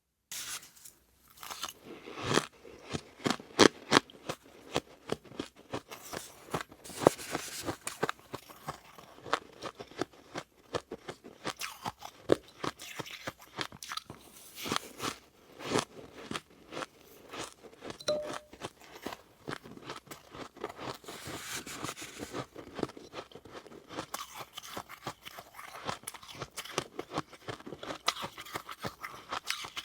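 Close-up crunching and chewing of freezer frost: many quick, sharp crunches as mouthfuls of soft, powdery ice are bitten and chewed.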